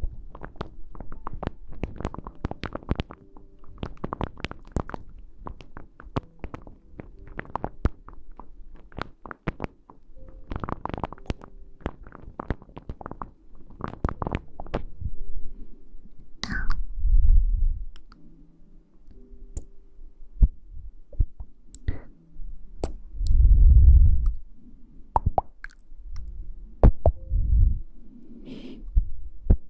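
ASMR trigger sounds made right at the microphone: quick crackling, rustling taps for the first half, then a few low, muffled thumps.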